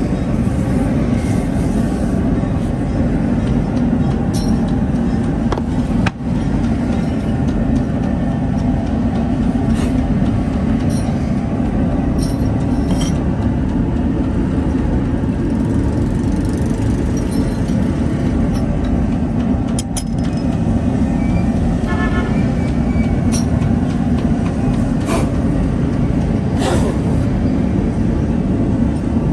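A steady low rumble, with a handful of sharp taps and knocks as metal sand-casting flasks and patterns are handled.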